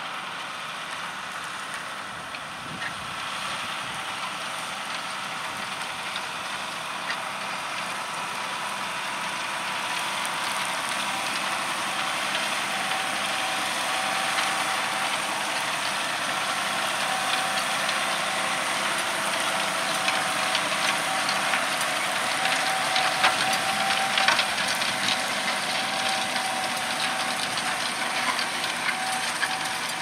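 John Deere 6R 215 tractor's six-cylinder diesel engine working steadily under load while pulling a plough through stubble, growing gradually louder as it comes closer. A thin steady whine joins about halfway through, with scattered light clicks near the end.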